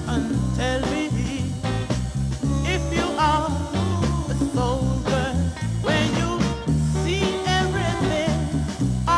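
Soul combo record playing: a steady bass and drum groove under a wavering melodic line, with no sung words.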